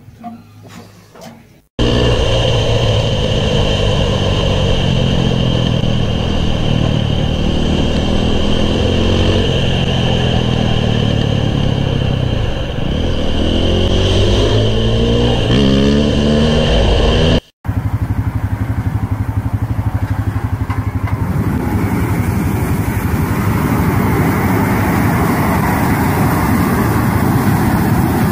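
Dirt bike engine revving up and down as it rides. After a sudden cut, a steady rush of noise over a tractor engine's running: a tractor pulling a row of burning flame-weeder burners.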